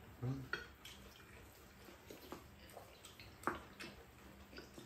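Quiet eating sounds: spoons scraping and clicking against ceramic rice bowls, with small wet mouth sounds of chewing, in scattered short clicks.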